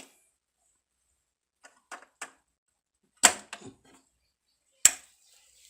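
A few small clicks, then a loud knock a little past the middle and a sharp loud click near the end: an immersion water heater's plug pushed into a wall socket and the socket switch turned on.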